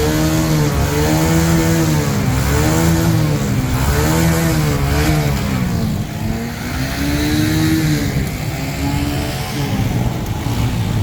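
A vehicle engine revving up and down again and again, its pitch rising and falling about every second and a half, over a steady wash of rain and water noise.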